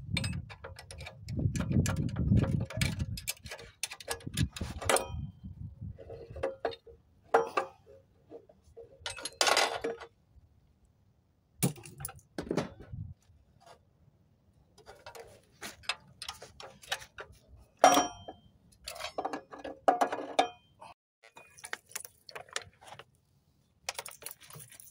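Metal clinks, clicks and knocks of a wrench and loose engine parts being handled on a partly dismantled Yanmar TF160 diesel, coming in scattered bursts with short pauses between them. There is some low rumbling from handling in the first few seconds, and one sharp clink near the end of the middle stretch is the loudest.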